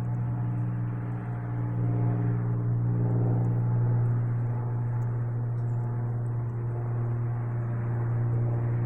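Small propeller plane flying overhead: its engine gives a steady low hum with a stack of higher overtones.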